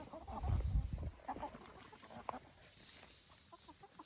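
Hens clucking in short, scattered calls while they gather around a piece of watermelon. A loud low rumble with thumps comes about half a second in.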